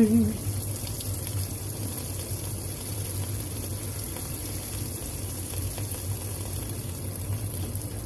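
Kenmore 80 Series top-loading washer filling with water for the wash: a steady rush of water pouring into the tub, over a low steady hum.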